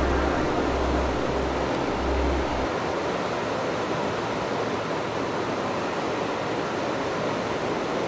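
Steady rushing noise with no clear source, under a low hum that cuts off about two and a half seconds in.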